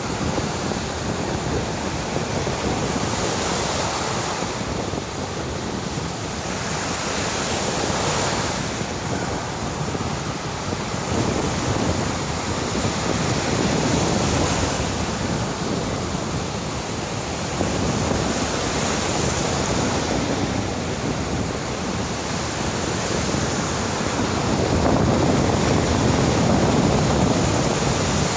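Heavy sea surf breaking and washing on a beach, swelling and easing every few seconds and loudest near the end, with wind buffeting the microphone.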